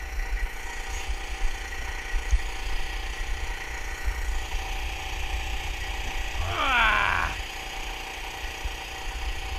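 A small portable generator running steadily aboard the boat, giving a low rumble with a constant hum. About two-thirds of the way in, a brief whine falls in pitch over about a second.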